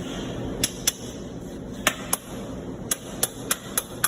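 About nine sharp metal taps, irregularly spaced and sometimes in quick pairs: a hammer striking a sheet-metal spiral duct flange connector, driving it into the outer wall of double-wall spiral pipe.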